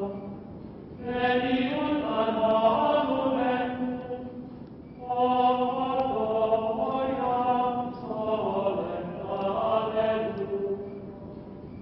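Chant-like choral music with sustained voices, swelling in three long phrases and fading out near the end.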